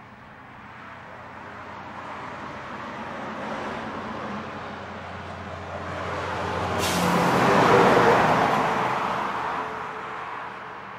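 A heavy road vehicle passing on the highway. Its engine and tyre noise builds steadily, peaks about eight seconds in as it goes by close, then fades, with a brief sharp hiss just before the peak.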